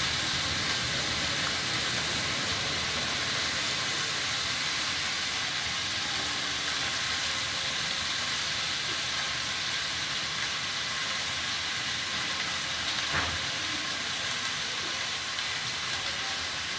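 Chopped onions frying in hot oil in a steel kadhai on a gas burner: a steady sizzle, with a small knock about thirteen seconds in.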